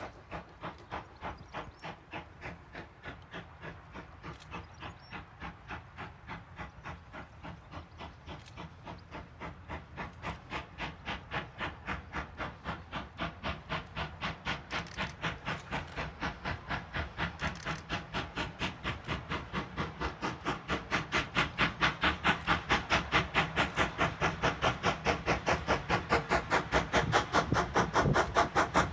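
Foremark Hall, a GWR Hall-class two-cylinder 4-6-0 steam locomotive, approaching under steam. Its exhaust beats come in a steady, rapid rhythm and grow steadily louder as it nears.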